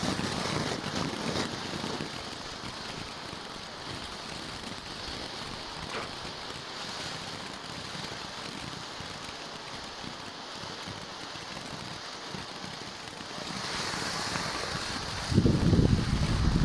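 Black Cat Afterglow low-noise firework fountain hissing steadily as it sprays sparks, with no whistles or bangs. It swells near the end into a louder, rougher rush.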